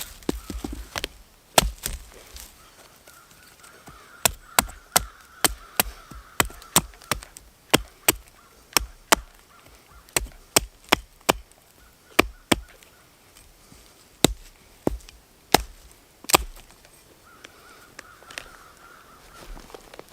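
Knife chopping food on a cutting board: sharp, separate strokes, often about two a second in short runs with pauses between.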